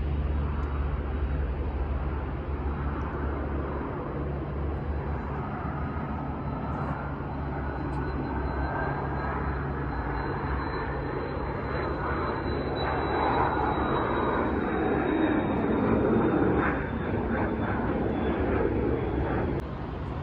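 Jet airliner passing by: its engines give a high thin whine that slowly falls in pitch in the second half, over a rush that builds, peaks about three quarters of the way through, then drops off shortly before the end.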